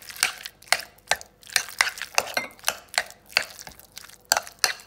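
A utensil knocking and scraping against a glass bowl while chopped hard-boiled eggs are stirred, about two or three knocks a second.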